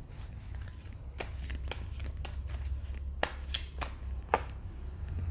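Tarot cards being shuffled and handled: a run of sharp, separate card snaps and slaps, most of them between about one and four and a half seconds in.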